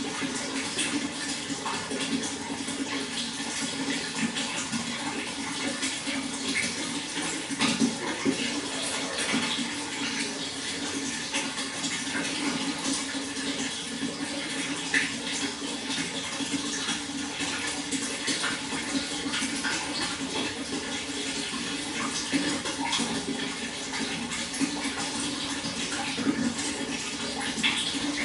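Water flowing steadily, a continuous even rush with small splashes and drips scattered through it.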